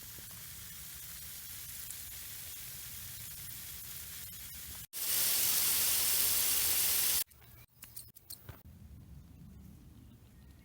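Water hissing as it sprays from a leak in a drip irrigation line. It runs steadily, cuts out about five seconds in and comes back much louder for about two seconds, then stops suddenly. After that it is quieter, with a few sharp clicks.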